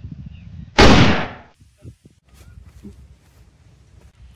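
A single loud gunshot sound effect about a second in, a sharp crack that dies away over about half a second.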